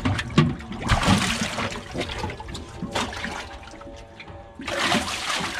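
Water splashing and sloshing as a big catfish thrashes in a metal toolbox live well. The splashing is loudest in the first second or so, eases off, then comes back strongly near the end.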